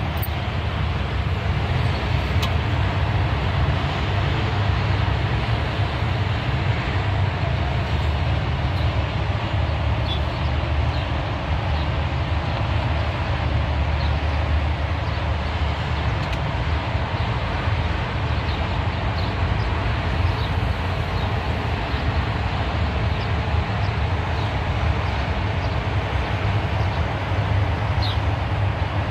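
Steady drone of multi-lane highway traffic heard from high above, a continuous wash of tyre and engine noise with a heavy low rumble and no single vehicle standing out.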